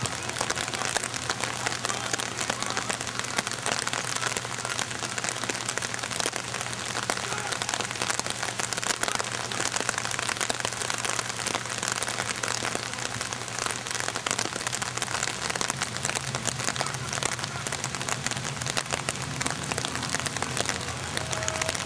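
Steady rain pattering, a dense even crackle of drops.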